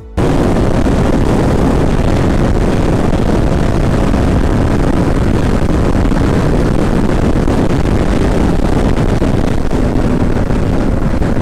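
Steady loud wind and road noise on the camera's microphone from a KTM Duke 200 motorcycle riding at highway speed, with the bike's single-cylinder engine running underneath.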